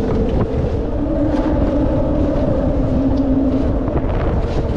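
Steady engine drone, a low hum that drifts a little in pitch, over wind rumbling on the microphone.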